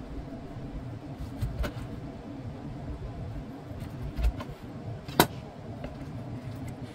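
Kitchen knife cutting through lemons on a wooden cutting board: a few dull knocks of the blade meeting the board, then one sharp click about five seconds in, over a steady low background hum.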